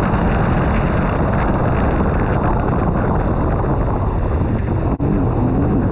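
Jet ski running out on the water, with heavy wind noise on the microphone. A wavering tone rises and falls near the end, and the sound drops out for an instant about five seconds in.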